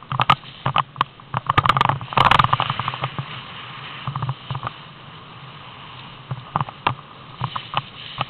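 Snowboard sliding and scraping over packed snow on a downhill run, with irregular knocks from the handheld camera; a longer, louder rough scrape about two seconds in.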